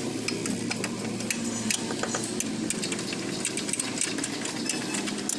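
A steady engine hum with many short, light clicks and taps scattered through it.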